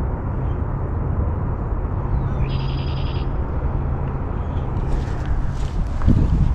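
Steady road and engine noise of a car driving, a constant low hum. About two and a half seconds in there is a short, high rattling chirp lasting under a second.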